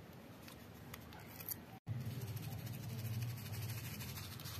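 Wooden stick pressing and stirring into clear slime covered in sugar, coffee granules and creamer powder, making a dense run of small crisp clicks as the grains crunch. A steady low hum sits underneath after a brief dropout about two seconds in.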